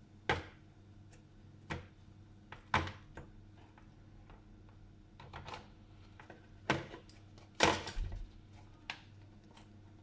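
A series of sharp knocks and clacks, about six, spread out with quiet gaps: household objects being handled and set down. The loudest is a double clatter nearly eight seconds in.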